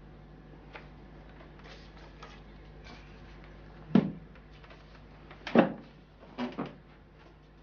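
Objects being picked up and set down on a wooden desk: a few light clicks, then louder knocks about four seconds in, the loudest a second and a half later, and two more close together just after.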